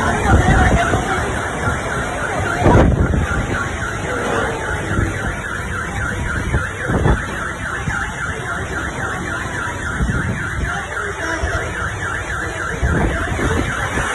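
Car alarm sounding with a fast, evenly repeating tone over heavy wind and rain that gusts louder now and then.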